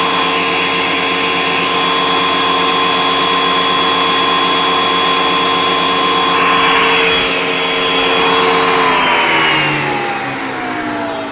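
Benchtop thickness planer's motor running steadily with a high whine and no board feeding, then switched off about nine seconds in, its pitch falling as the cutterhead spins down.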